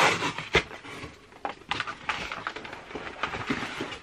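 Cardboard book packaging being handled and opened: uneven rustling and crinkling with a few sharp clicks and snaps.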